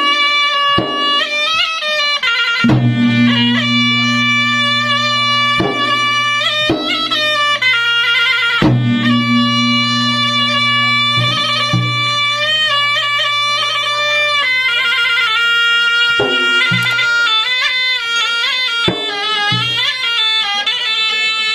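Traditional South Sulawesi gendang ensemble music: a reedy, bagpipe-like shawm (pui-pui) plays an unbroken ornamented melody with constant pitch slides, over scattered drum strokes. A deep low tone is held underneath for several seconds at a time.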